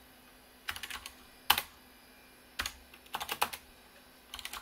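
Typing on a computer keyboard: short runs of keystrokes, each ending in a single heavier stroke, three runs in all.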